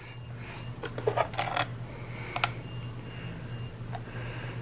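A few light clicks and taps of a fire alarm horn strobe being handled, with a cluster about a second in and a sharper tap near the middle. They sit over a faint steady hum.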